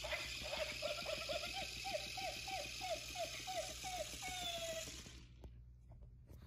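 Motion-activated bouncing gingerbread-man toy running on carpet: its motor rattles and buzzes while a rapid run of short falling electronic chirps plays, about four a second, ending on one longer note. The toy cuts off about five seconds in, leaving faint clicks.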